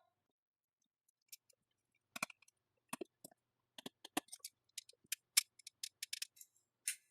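Irregular light clicks and ticks of a small screwdriver and screws being worked back into the frame of a Tokyo Marui Mk23 airsoft pistol during reassembly.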